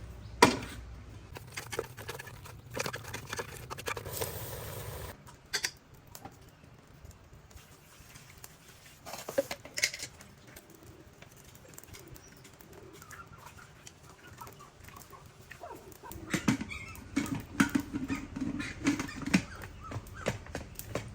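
Chickens clucking, mixed with scattered knocks and clicks.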